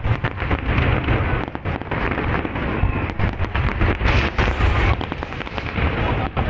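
Fireworks display: aerial shells bursting in a rapid, dense barrage of bangs with heavy low booms, and a brighter crackling hiss about four seconds in.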